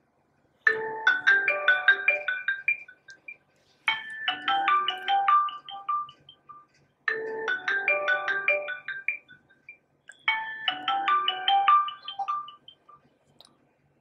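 Honor Play smartphone loudspeaker playing a ringtone: a short melody of quick notes that repeats four times, about every three seconds, each time fading out before the next begins.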